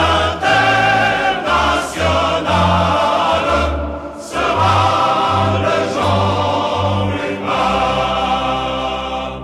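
Choral music: a choir singing over a deep bass accompaniment. The piece ends on a long held chord that begins to fade out near the end.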